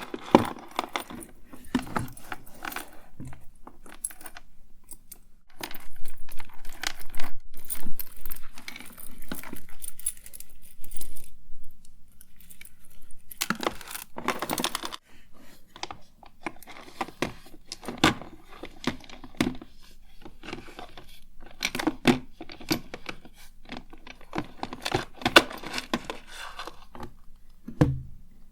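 Hands rummaging through cosmetics and small hard objects: a steady run of clicks, clinks and rattles with some rustling, busier in a few stretches.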